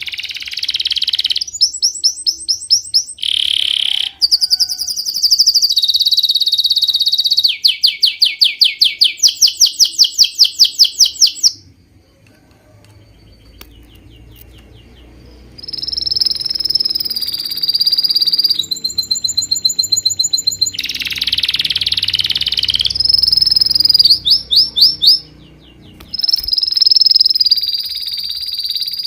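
Birds chirping and trilling: high, rapid chirps and fast trills of several kinds that change abruptly every few seconds. There is a quieter stretch about a third of the way in and a brief drop near the end.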